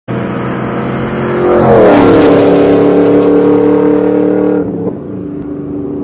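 Chevrolet Camaro SS V8 with dual exhaust driving past. The exhaust note drops in pitch as the car passes, about two seconds in, where it is loudest, then holds at the lower pitch and fades.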